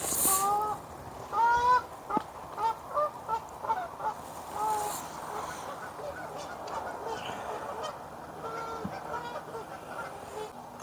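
Geese honking: a quick run of short calls over the first few seconds, then fainter, sparser calls later on.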